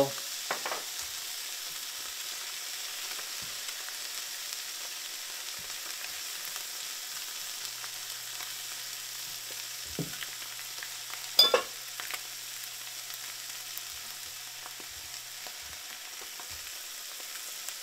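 Eggs and ham sizzling steadily in butter in a frying pan on the stove, with a spatula shifting the food. A sharp clack of the spatula against the pan stands out about eleven seconds in.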